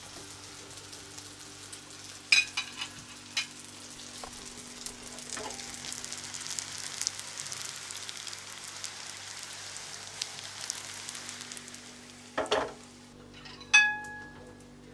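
Pancake batter frying in a pan on a gas stove, with a steady sizzle. A few sharp metallic clacks come early and near the end. The sizzle fades away near the end, and a single ringing metal clank follows.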